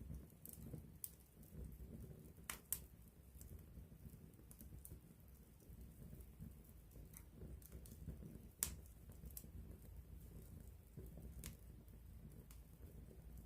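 Wood campfire burning and crackling softly: scattered sharp snaps and pops over a low, steady rumble of flame. Two pops stand out as louder, about three seconds in and again about nine seconds in.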